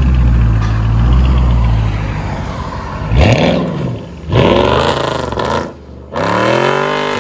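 Dodge Charger Scat Pack's 392 (6.4 L) HEMI V8 through a dual exhaust with the mid mufflers replaced by straight 3-inch pipe. It runs low and steady for about three seconds, then takes three sharp bursts of throttle, its pitch rising and falling back each time. The sound drops away briefly just before the last burst.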